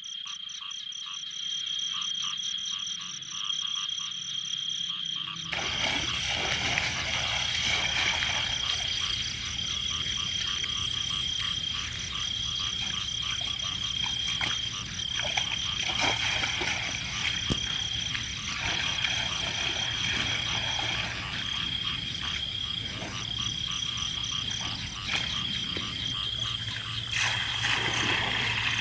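A chorus of frogs calling, with a high continuous trill and rapid pulsed croaks. From about five seconds in, a louder even noise joins underneath.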